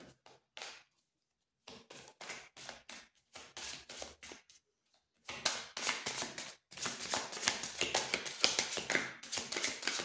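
A deck of tarot cards being shuffled by hand: quick, dry patters of cards slapping and sliding against each other. The patters come in short spells at first and run almost without a break from about halfway through.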